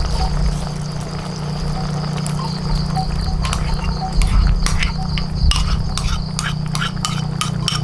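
A run of sharp clinks and knocks of hard objects, few at first and thicker in the second half, over a steady high insect drone and a low steady hum.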